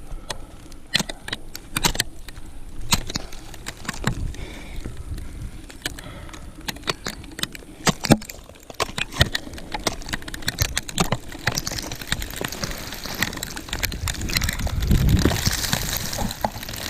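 Irregular sharp clicks and knocks of ice-climbing gear over rustling, growing busier and noisier in the last few seconds.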